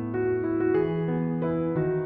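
Background music: a soft keyboard melody, with notes changing about every half second over held lower notes.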